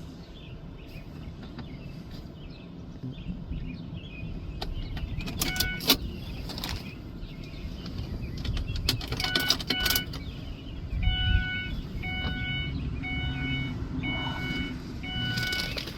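Clicks and rattles of handling, then a repeating electronic chime: about eight identical dings, one every two-thirds of a second or so, starting after about eleven seconds.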